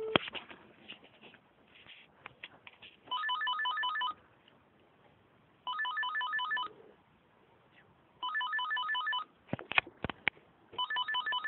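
Electronic telephone ringer trilling in four rings of about a second each, roughly two and a half seconds apart. The sound is cut off above the pitch range of a phone line. A few sharp clicks come between the third and fourth ring.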